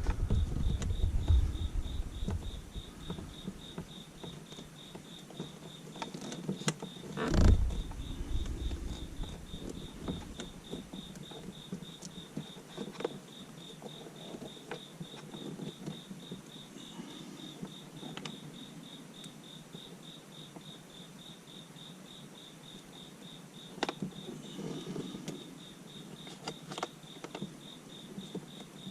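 A steady, evenly pulsed high-pitched chirping throughout, with a few knocks and rustles of hands working, the loudest a thump about seven and a half seconds in.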